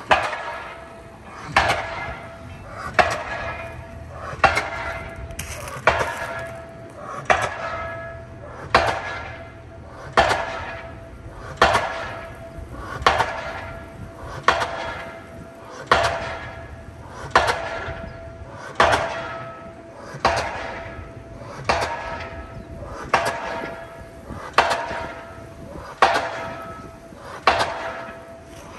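Pile driver hammering a steel pile for new pier construction: one heavy ringing metallic blow about every one and a half seconds, steady and regular.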